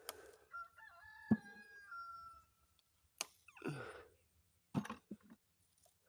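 A rooster crowing once, one long call of about two seconds. Around it are several sharp knocks and short rustles.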